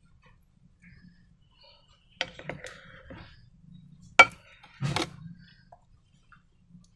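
Sharp clicks and knocks from objects being handled, three main ones about two, four and five seconds in, the middle one loudest, with fainter handling noise between.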